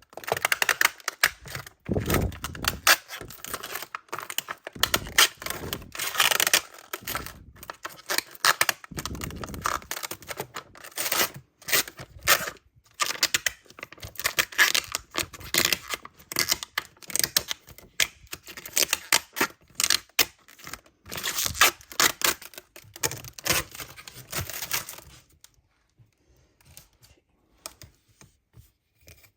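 Plastic packaging being torn and crinkled open by hand, a dense run of crackling rustles and sharp clicks that dies down about 25 seconds in, leaving only faint handling noises.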